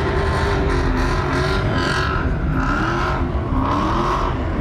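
Vehicle engines running loud and revving, with a higher wavering whine over them from about two seconds in.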